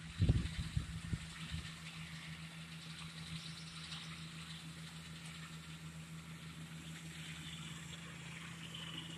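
Farm tractor running steadily while pulling a hay mower through standing hay, a steady low drone with a faint hiss above it. A few low thumps come in the first second or so.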